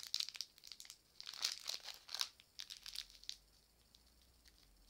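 A small sweets packet crinkling and crackling in short bursts as it is twisted and pulled at by hand and teeth, the sound thinning out after about two seconds; the packet is hard to open and does not tear open.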